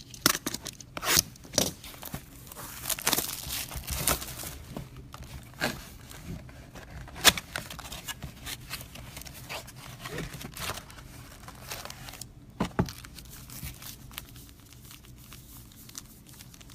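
A sealed box of trading cards being ripped open by hand: the packaging tears and crinkles in irregular sharp crackles and rustles, thinning out in the last few seconds.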